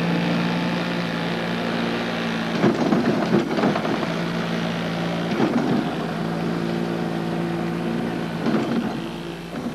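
Automated knife-cutting machine running as it cuts carbon-fibre sheets: a steady motor hum whose pitch shifts now and then, with brief louder noisy passages about three, five and a half and eight and a half seconds in.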